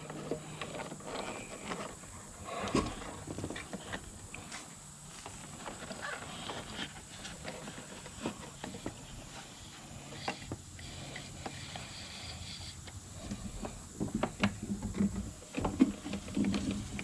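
Hand-work noises while wire is fed through the vehicle: scattered clicks, taps and rustling, busier near the end.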